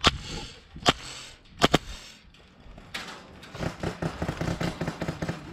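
Airsoft guns firing: a few sharp single shots with a quick double shot among them, then a fast string of quieter shots lasting about two seconds.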